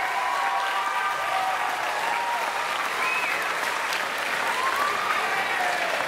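Crowd applauding steadily, with scattered voices heard over the clapping.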